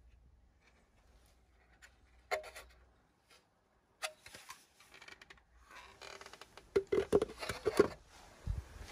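Plastic car tail light housings being handled: a few sharp clicks and knocks, then a busier clatter of taps and scrapes about six to eight seconds in.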